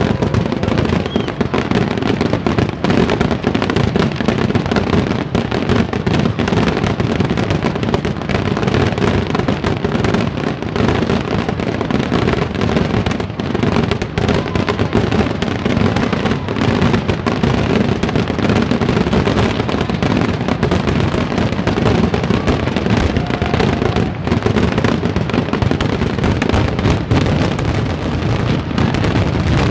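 Fireworks display: a dense, unbroken barrage of aerial shell bursts and crackling, many reports overlapping with no pause.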